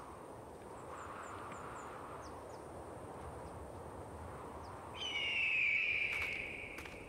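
Outdoor wind noise rising and falling gently. About five seconds in, a single loud, high bird cry sounds, falling slightly in pitch and lasting about two seconds.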